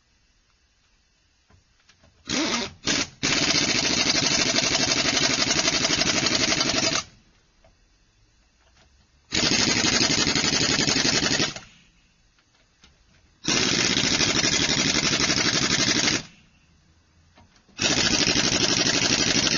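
Pneumatic wrench (air impact wrench or ratchet) run in bursts: three quick trigger blips about two seconds in, then four long runs of fast hammering, each two to four seconds long with short pauses between them, the last still going at the end.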